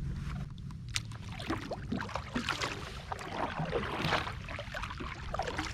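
Kayak paddle strokes splashing and dripping in the water, over a low wind rumble on the microphone.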